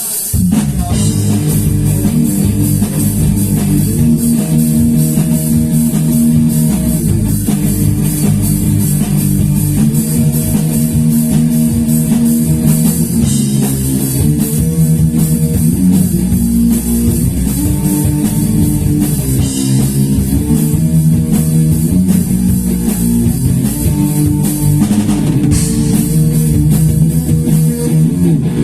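Rock band playing an instrumental passage without vocals: guitar chords over bass guitar, with a drum kit keeping a steady beat.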